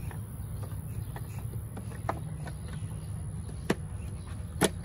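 A few sharp plastic clicks and taps as an LED bulb and its connector are worked into the back of a headlight housing, the sharpest near the end, over a steady low rumble.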